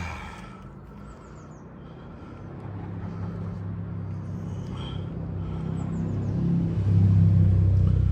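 A vehicle engine running with a low, steady hum that grows steadily louder, peaking near the end.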